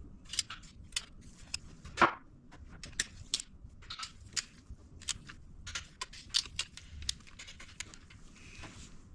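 Irregular sharp metallic clicks and clinks of hand tools on the flywheel housing bolts as they are tightened, with one louder, briefly ringing metal clank about two seconds in.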